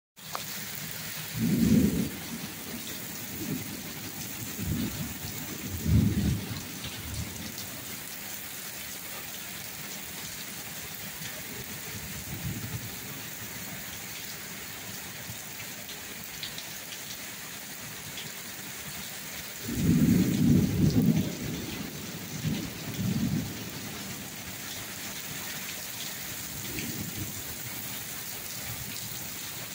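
Heavy rain pouring steadily onto a wet brick-paver sidewalk and street, with a steady hiss. Low thunder rumbles break through several times, loudest about twenty seconds in.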